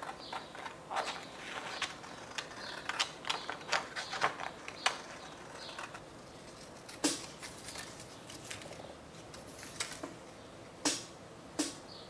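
Scissors snipping through printer paper as words are cut out into strips: a quick run of short snips over the first five seconds, then a few single cuts spaced out.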